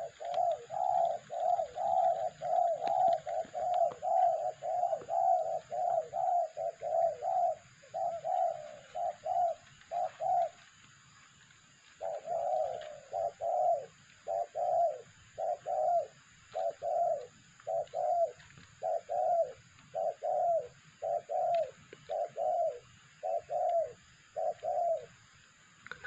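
Spotted dove (tekukur) cooing in a long run of short, evenly repeated coos, about two a second. The coos break off about ten seconds in and start again a little more slowly after a short pause.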